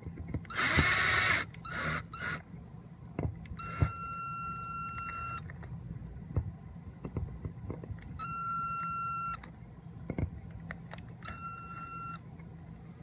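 Three long, steady electronic beeps. The first lasts about a second and a half, the next about a second, and the last is shorter, spaced about four and three seconds apart. Before them, about half a second in, comes a short loud hiss, and light clicks are scattered between.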